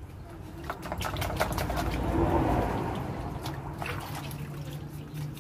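Hands washing mud lobsters in a plastic basin of water: small splashes and drips, with a fuller slosh of water about two seconds in.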